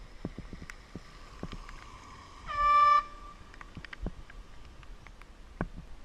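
A single short blast of a handheld air horn, one steady tone lasting about half a second, a little past two seconds in. Scattered light clicks and knocks sound around it.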